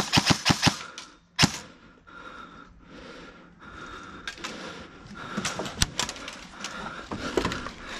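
Airsoft rifle firing: a rapid burst of sharp clicking shots at the start, a single shot about a second and a half in, then scattered, fainter shots from about five seconds on.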